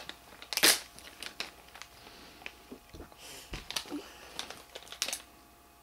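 Intermittent rustling and crinkling handling noise with small sharp clicks; the loudest rustle comes about half a second in.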